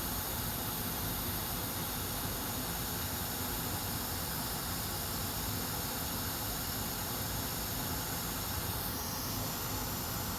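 Hot air rework station blowing a steady hiss of 500 °C air onto a laptop motherboard, heating it to desolder a chip.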